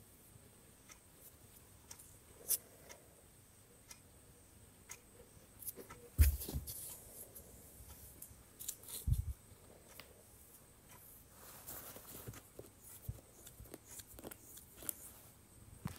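Faint rustling and light tapping of hands handling fabric and a tape measure while marking a seam allowance. There are two dull thumps, about six and nine seconds in, and the first is the loudest.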